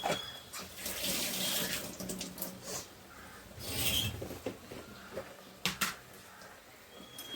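A wet spice-and-nut paste frying in hot ghee in a kadhai, sizzling in surges as it is stirred, with two sharp knocks of the spoon against the pan a little past halfway.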